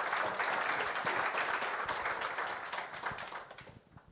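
Audience applauding, a dense patter of many hands clapping that dies away about three and a half seconds in.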